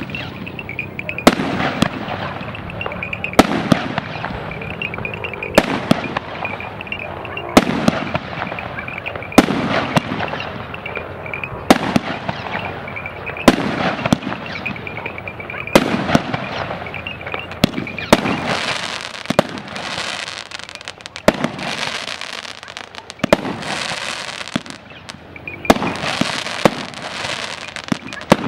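A fireworks cake (torta) firing shot after shot, each a sharp bang. The shots come about every two seconds at first, then faster from about two-thirds of the way through, with crackling between them.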